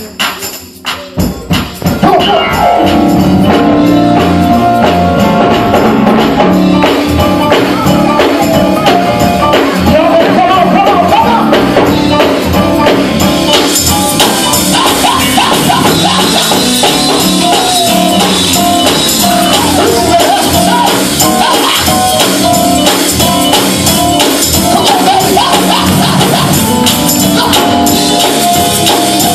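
Live gospel music with voices singing over a full band, kicking in loud about two seconds in after a few sharp strikes, and getting brighter at the top from about halfway.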